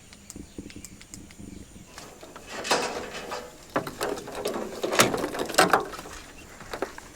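Camping gear being handled and set up: rattling, clicking and rustling, sparse at first and busier and louder from a couple of seconds in.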